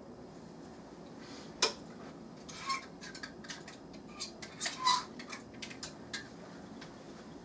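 A squirrel feeding at a tray, making irregular sharp clicks and taps. A single loud click comes about a second and a half in, and a denser run of taps follows near the middle.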